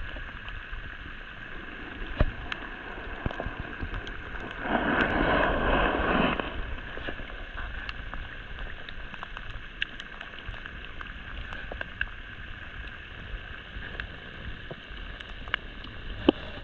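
Muffled underwater ambience picked up by a submerged camera: a steady water hiss with scattered sharp clicks, and a louder rush about five seconds in that lasts under two seconds.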